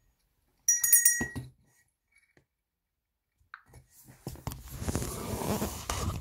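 A short, bright chime with several high ringing tones from the tablet's speaker about a second in, dying away within about a second. Near the end, loud rustling and scraping handling noise as a hand moves over the recording device.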